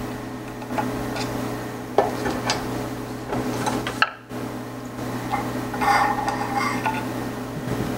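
Small metallic clicks and clinks as an Allen key works out the screw holding the brass saddle nut on a Sherline mill's Z-axis, then brief light metal ringing as the loosened parts are handled about three-quarters of the way through. A steady low hum runs underneath.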